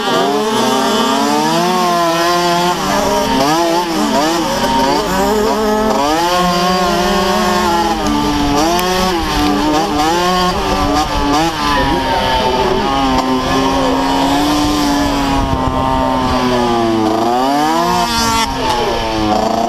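Small two-stroke mobcross bike engine heard from a camera mounted on the bike, revving up and dropping back over and over as the rider accelerates and backs off around the dirt track.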